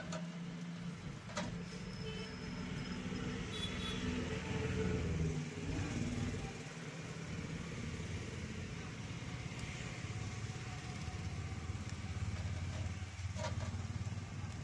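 Street traffic: motor vehicle engines running, their pitch shifting a few seconds in, with faint voices in the background.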